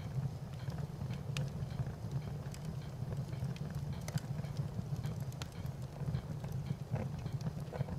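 Wood fire burning: a steady low rumble with irregular sharp crackles and pops.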